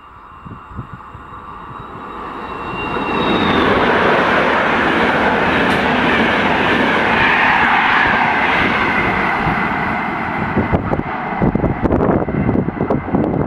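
E402 electric locomotive and Thello passenger coaches passing at speed: a rushing noise swells as the train nears, with a high whine that stops as the locomotive goes by about three seconds in, then the steady rush of the coaches' wheels on the rails. Near the end, choppy gusts of wind buffet the microphone in the train's wake.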